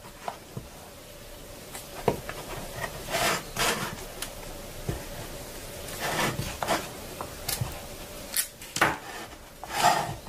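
Plastic children's scissors cutting and scraping through moulded play sand, with irregular crunching and scraping strokes, the loudest near the end.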